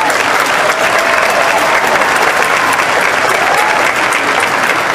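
Large audience applauding as a choir's song ends: dense, steady clapping from many hands.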